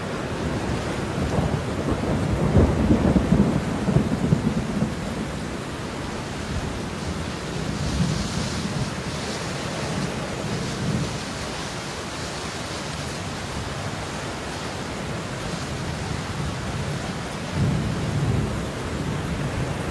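Steady rain with rolling thunder: a long low rumble swells about two to five seconds in, and a shorter one comes near the end.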